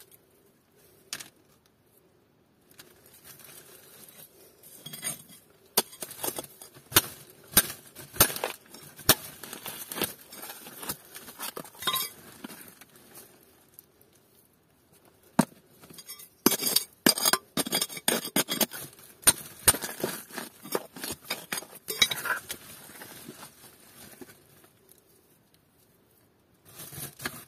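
A hand hammer striking ore-bearing rock: irregular sharp metallic clinks, in two busy runs with a pause in between.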